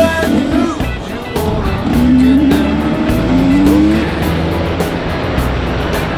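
Background music with a steady beat and a wavering melody line that climbs about two seconds in.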